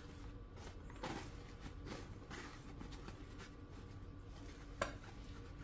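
Soft rustling and crinkling of a paper towel as fried pork cubes are shifted in a bowl to blot off the oil, over a low steady hum, with one sharp light click near the end.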